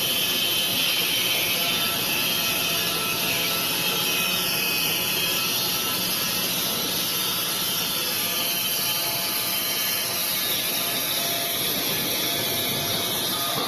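Wood-Mizer industrial band sawmill running through a log: a steady, high blade hiss and whine whose pitch drifts slowly as the cut goes on.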